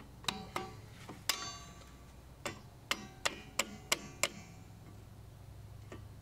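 Sharp metallic clicks and taps, about ten in all, as long-nose pliers grip and work the hooked end of a steel drum-brake return spring onto the self-adjuster clip; each click rings briefly, most of them bunched in the first four seconds with a last one near the end.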